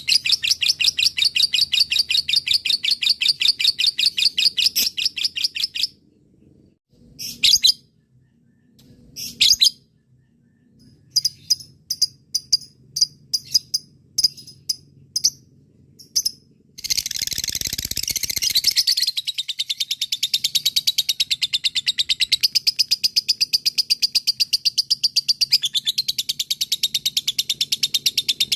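Lovebird singing a long, rapid chattering trill (ngekek). It breaks off after about six seconds into a few short calls and chirps. Then comes a harsh burst, and another long, rapid trill starts.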